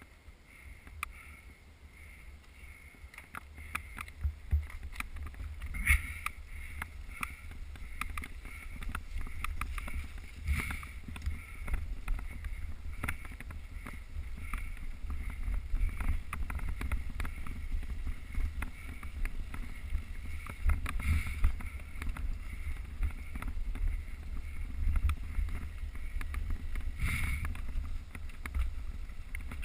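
Mountain bike riding down a rough trail, heard from a bike-mounted camera: wind rumble on the microphone with tyre and trail noise, and frequent clicks and knocks as the bike jolts over bumps. It grows louder over the first half.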